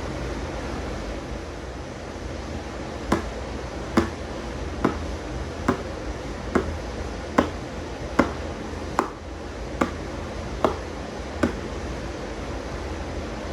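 About eleven sharp taps, evenly spaced a little under a second apart, over a steady rushing noise.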